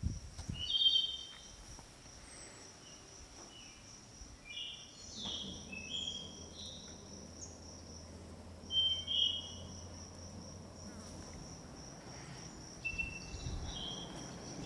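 A steady, high-pitched insect trill, with birds calling in short chirps over it. A low hum comes in about five seconds in and fades about five seconds later.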